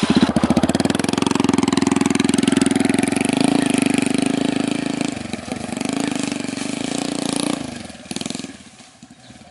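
Small step-through motorcycle's engine running as it pulls away, with a brief dip about five seconds in, then fading as it rides off.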